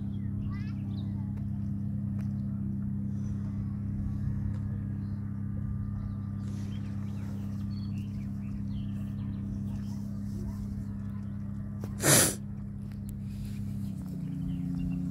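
A steady low engine drone, its pitch shifting slightly near the end, with one short loud burst about twelve seconds in.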